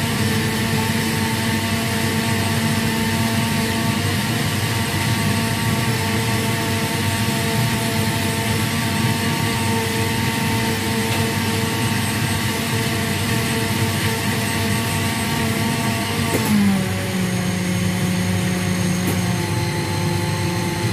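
A steady machine drone, like an electric motor or fan running, with several steady tones over a rushing noise; about sixteen seconds in it steps down to a lower pitch and keeps running.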